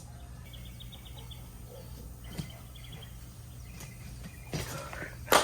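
A bird chirping in two short runs of quick high notes over a steady low hum, then a few sharp knocks near the end, the loudest at the very end.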